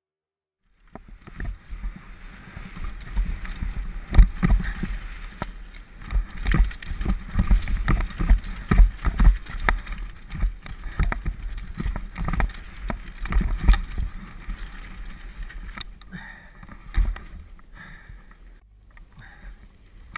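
Downhill mountain bike clattering over a rocky trail, heard from the rider's helmet camera: rapid, irregular knocks and thuds as the wheels and frame hit rocks, over a steady rush of wind and tyre noise. It starts about a second in and gets lighter over the last few seconds.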